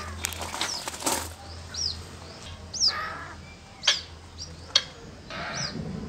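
Water birds: high, thin peeping calls repeat about once a second, mixed with several short rustling bursts of wing flapping.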